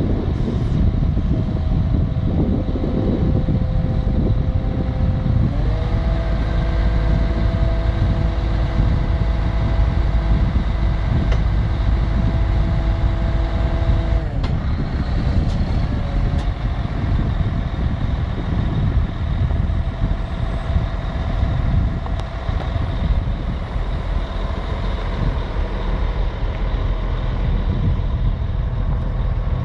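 Caterpillar 966H wheel loader's diesel engine running steadily. About five and a half seconds in the pitch steps up as it revs higher, holding until about fourteen seconds in, then drops back to a lower, steady run.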